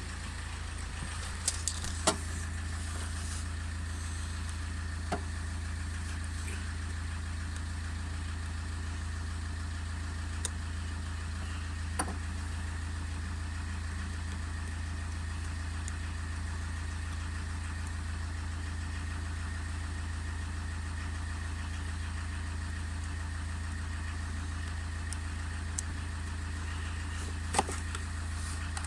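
A car engine idling steadily, with a few sharp clicks over it.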